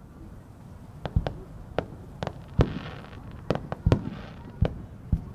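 Aerial fireworks shells launching and bursting: a quick series of about eight sharp bangs, starting about a second in, with a faint hiss after some of them.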